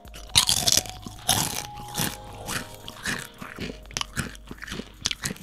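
Two people biting into and chewing hand-cooked root vegetable crisps, with irregular sharp crunches as the crisps break.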